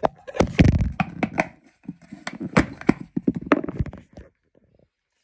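Thin plastic toothbrush holder being handled with its insert pulled out: a string of plastic clicks, knocks and rubbing, with dull thumps in the first second, stopping about four seconds in.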